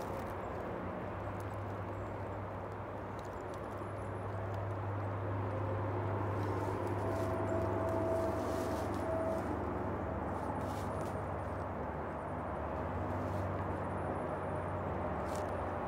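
A low, steady engine drone that swells toward the middle and eases off again, with a few light crunches of dry leaves.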